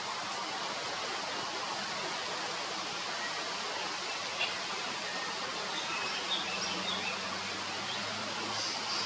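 A mangrove robin giving a few short, soft calls, one about four seconds in and several more in the second half. A steady hiss of background noise runs beneath them.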